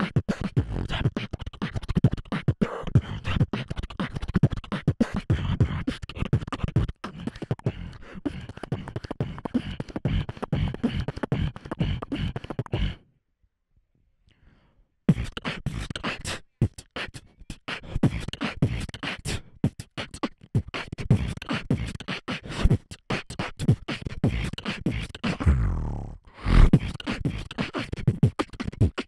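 Beatboxing into a handheld microphone: fast vocal kick drums, snares and hi-hat sounds with heavy low thumps. One beatboxer's round stops about 13 seconds in, there are about two seconds of near silence, and a second beatboxer then starts his round.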